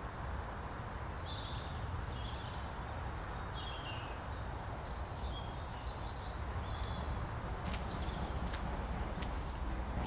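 Several small birds chirping and calling in woodland, short high notes scattered through most of the clip, over a steady low rumble. A few sharp clicks near the end.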